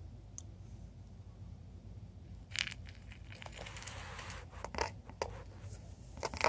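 A small pet rodent burrowing in wood-shaving bedding against clear plastic: rustling and scratching of the shavings, in bursts from about two and a half seconds in, with a longer rustle around four seconds and a sharp click near the end.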